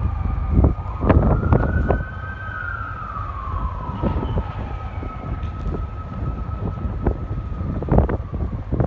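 Fire engine siren giving a brief rise in pitch, then winding slowly down over several seconds, above a steady high tone. Scattered knocks and wind rumble on the microphone.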